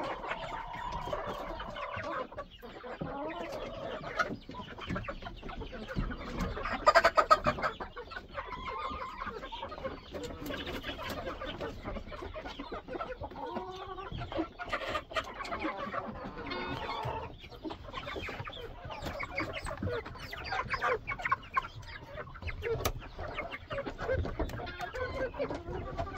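A flock of chickens clucking and calling continuously, with a louder burst of calls about seven seconds in.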